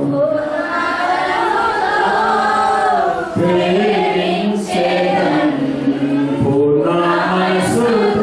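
Worship chant sung slowly by voices, with a man's voice leading over a microphone, in long held notes broken into phrases about every three seconds.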